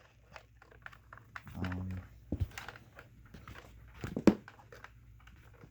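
Plastic smoke alarm housings being handled and set down: scattered light clicks and knocks, with one sharp knock about four seconds in.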